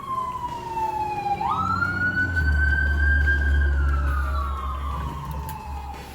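Emergency vehicle siren wailing: a tone slides slowly down, sweeps back up about a second and a half in, holds, then slides slowly down again. A deep engine rumble runs under it through the middle.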